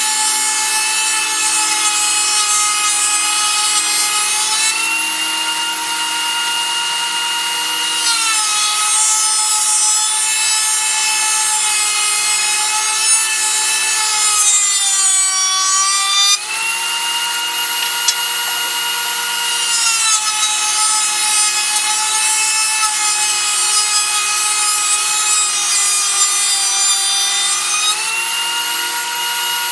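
Benchtop thickness planer running, planing 2x3 pine boards: a loud, steady high whine that drops in pitch each time the cutterhead takes the load of a board, and rises back when the board clears. The pitch sags around 8 s and 20 s and wavers lowest around the middle.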